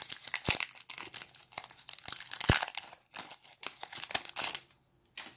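Foil Magic: The Gathering booster pack wrapper being torn open and crinkled as the cards are slid out, a dense crackle with sharp snaps. The crackling stops about a second before the end, followed by one last short crinkle.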